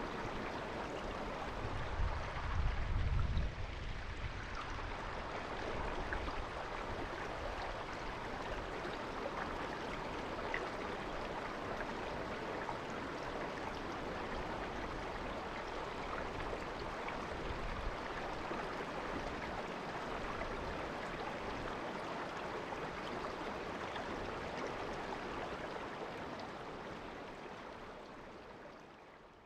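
River water babbling steadily in a shallow stream, an even rushing murmur. A brief low rumble comes in about two seconds in, and the sound fades out at the very end.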